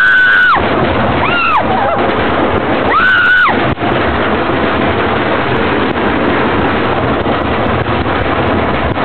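Roller coaster ride with a loud, steady rushing roar, and riders screaming three times in the first few seconds.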